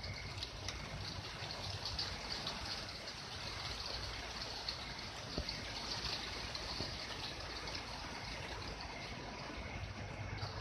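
Rain falling steadily in a rainstorm, a dense patter of drops with water trickling and running off. One sharper tap about five seconds in.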